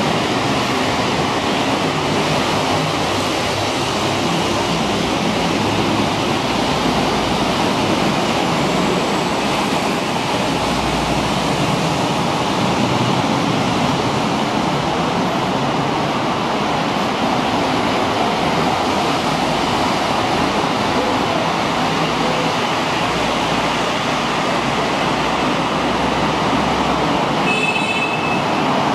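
Steady, loud city traffic and elevated-train noise, with low rumbles swelling twice. About a second before the end, a short run of high electronic beeps.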